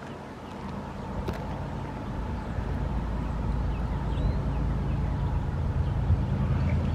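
A motor vehicle engine off camera, a low steady hum that grows louder over several seconds, with a few faint high chirps above it.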